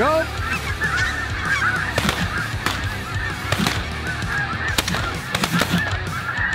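A large flock of snow geese calling constantly overhead, a dense chorus of overlapping honks. A few sharp cracks of shotgun fire are mixed in.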